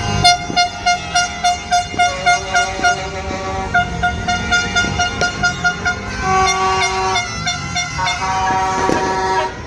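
Horns tooting: one horn sounds in quick short toots, about four a second, for about six seconds, then several horns at different pitches hold longer overlapping blasts.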